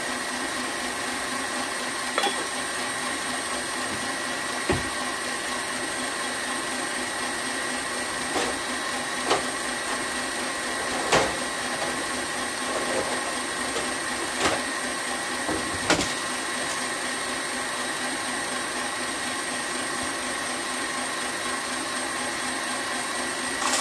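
KitchenAid Classic stand mixer running steadily, its motor humming as the beater mixes dry bath-bomb mix with citric acid in the steel bowl. A few short sharp knocks come from things being set down on the counter.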